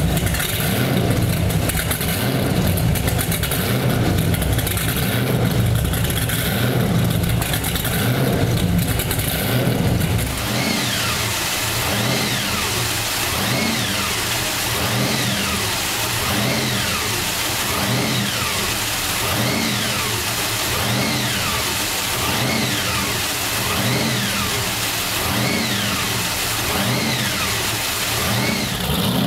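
Twin supercharged 575ci Mercury Racing big-block V8s idling with a deep rumble, their revs hunting up and down about every second and a half: blower surge makes the motors rev at idle. From about ten seconds in, a supercharger whine rises and falls with each surge.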